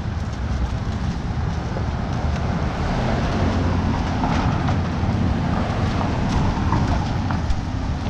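Road traffic with a van driving past about halfway through, over a steady low rumble of wind on the microphone.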